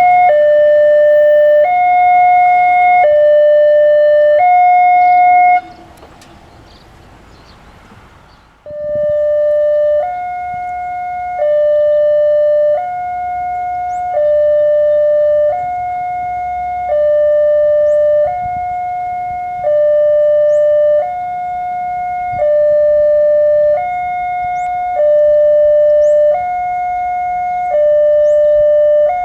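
Railway level-crossing warning siren sounding a two-tone hi-lo pattern, each note held about a second and a half. It breaks off about five and a half seconds in and starts again about three seconds later. It is the signal that a train is approaching the crossing.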